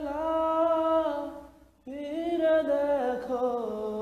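A man singing a Bengali love song unaccompanied, holding long drawn-out notes. The first phrase fades out before the halfway mark, and the next starts straight after with a wavering note that slides down in pitch.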